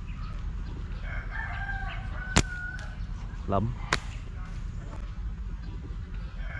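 Two sharp snaps of a rubber-band slingshot being fired, the first about two and a half seconds in and the second about a second and a half later. A rooster crows in the background.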